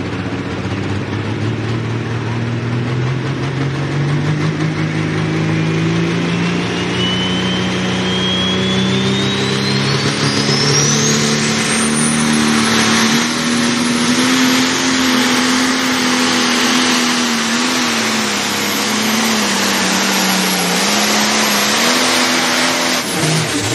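International Harvester 1466 pulling tractor's turbocharged diesel engine at full throttle while dragging a sled. Under the engine's steady note, a high turbocharger whine climbs steeply over the first ten seconds or so to a high scream and then holds. The engine note dips twice under load late in the run.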